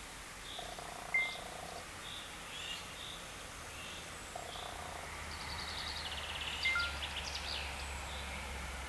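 Outdoor ambience of birds calling: short high chirps repeated every second or two, and a quick rattling trill about halfway through, over a steady low hum.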